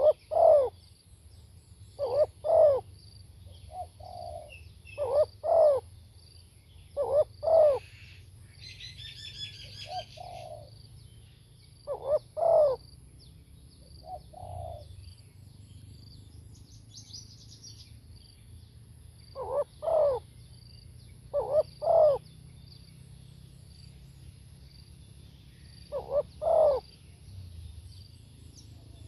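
Spotted dove cooing, a short two-note phrase repeated every two to three seconds with a pause in the middle. Another bird gives a brief high trill twice.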